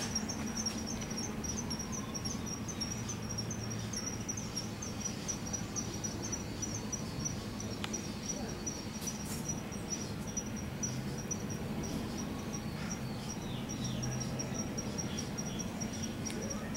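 An insect, cricket-like, chirping high and steadily at about four chirps a second, over a low steady hum.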